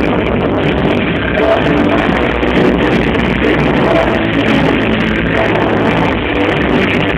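Loud music playing continuously.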